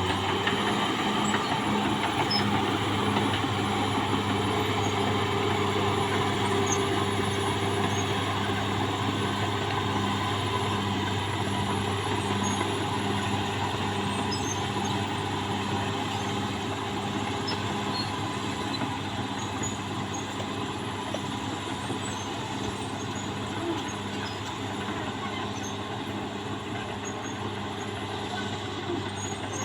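Caterpillar D6R XL bulldozer's diesel engine running steadily, its pitch rising just as it starts, then holding.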